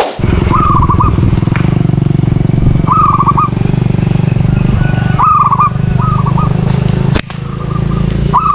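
Motorcycle engine running steadily while riding along. A short, quickly pulsed call is heard over it about five times.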